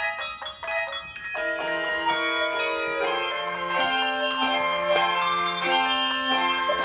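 Handbell choir playing a piece: a run of quickly struck, ringing notes, then from about a second and a half in, sustained chords with lower bells joining and ringing on under the melody.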